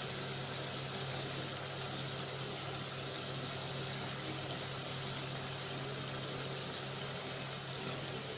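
Tomato-onion masala simmering and sizzling in an aluminium karahi over a gas burner, a steady hiss over a steady low hum.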